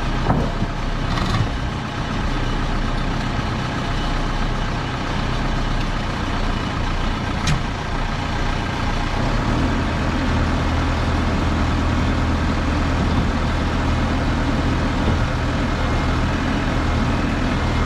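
Heavy equipment's engine running steadily. About halfway through, its low hum grows stronger and stays that way, and a single sharp click sounds just before.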